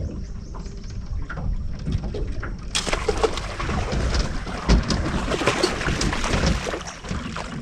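A low steady hum, then about three seconds in a sudden loud burst of splashing and thrashing water with sharp knocks that lasts several seconds: a bow-shot buffalo fighting at the surface.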